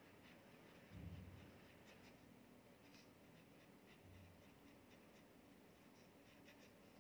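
Pen writing on a paper workbook page: faint, quick scratching strokes of handwriting, with a soft low thud about a second in.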